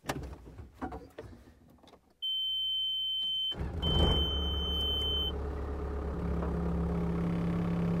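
A few knocks, then a steady high electronic warning beep from about two seconds in, and an engine starts about three and a half seconds in and settles into a steady run while the beep carries on briefly.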